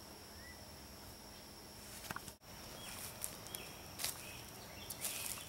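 Faint woodland ambience with a steady high tone and a few short bird-like chirps. After a brief dropout a little over two seconds in, a few soft crunches of footsteps on the forest floor.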